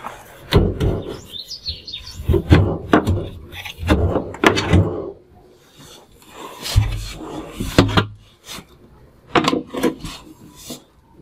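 Top cover of a Whirlpool front-loading washing machine being slid back and lifted off: a series of scrapes, knocks and rattles of the panel, with a couple of heavier thuds about seven seconds in and sharp clicks near the end.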